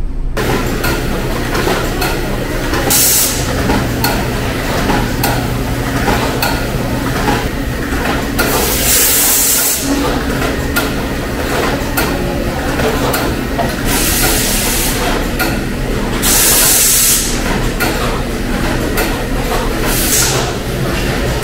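Meat-packing line machinery and conveyor belts running with a steady low hum, broken by short bursts of hiss every few seconds.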